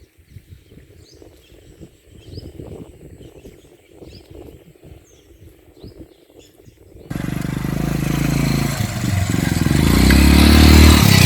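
Small birds chirping over a low background, then an abrupt cut about seven seconds in to a loud motor engine running, its pitch rising and falling near the end.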